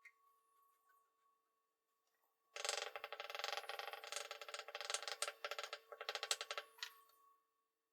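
A rapid, ratchet-like clicking rasp, something being scraped or ratcheted in quick strokes, starting about two and a half seconds in and lasting about four seconds, over a faint steady electrical hum.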